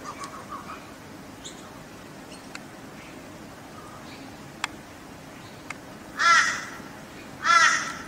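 Bird calls: a soft run of chuckling notes at the start, then two loud, harsh calls about a second apart near the end.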